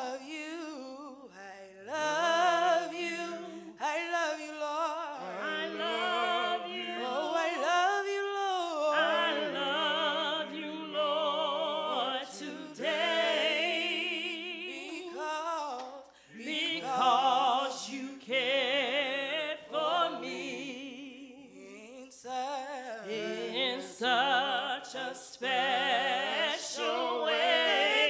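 A small group of voices, two women and a man, singing a slow gospel praise song with vibrato and long held notes.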